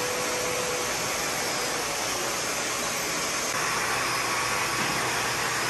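Pet grooming force dryer blowing a steady rush of air through the dog's long coat; its tone shifts slightly about three and a half seconds in.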